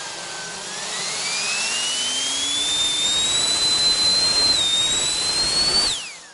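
Handheld electric ducted fan spooling up with a rising whine over rushing air, holding near full speed, then cut off about six seconds in, its pitch dropping fast as it shuts down.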